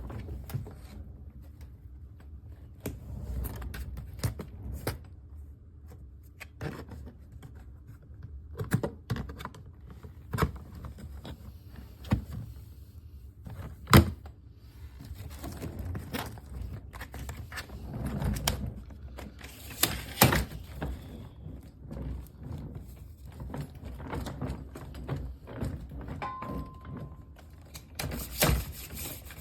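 Handling noise from luggage being moved about: scattered thunks, clicks and rustles, with sharp knocks about 14 seconds in and again near 20 seconds.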